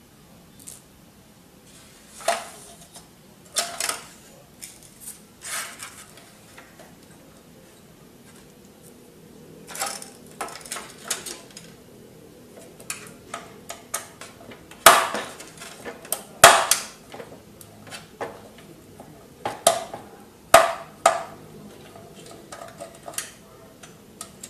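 Hard plastic parts of an HP F2410 all-in-one printer being handled and worked loose during a teardown: irregular clicks, knocks and rattles, in clusters with a pause partway through and the loudest knocks in the middle.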